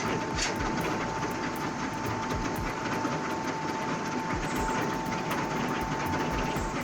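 Steam-driven sawmill machinery running: a continuous rattle and clatter of many small knocks over a steady high whine.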